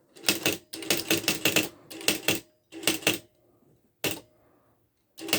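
Smith Corona 250 DLE electronic typewriter printing a function-key command: quick runs of sharp mechanical strikes in four bursts over the first three seconds, a single strike about four seconds in, then another run near the end.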